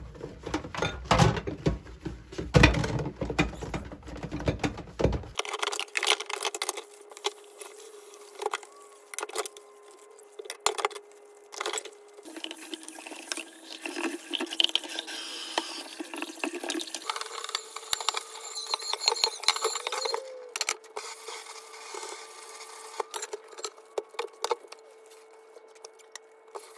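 Dishes being washed by hand in a stainless steel sink: plates, cups and utensils clink and knock against each other and the basin, with tap water running. There is heavier thumping and handling for the first five seconds or so, then lighter clinks over the water.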